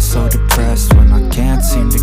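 Hip-hop song with rapped vocals over a heavy bass beat, with a deep booming bass hit about a second in.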